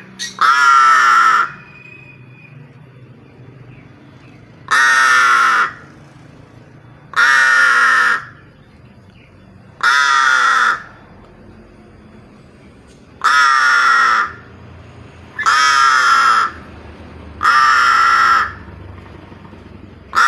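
A pet crow cawing loudly: seven harsh, drawn-out caws of about a second each, spaced two to three seconds apart, each dropping in pitch.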